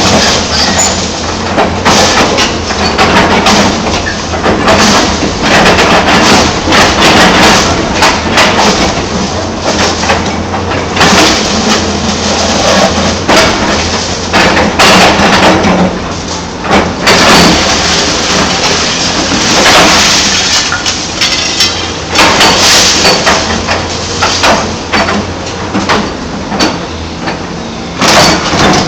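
Hyundai 290 LC-9 hydraulic excavator's diesel engine running steadily under load, with repeated irregular clattering and banging as loads are dumped from its bucket into a truck's steel body.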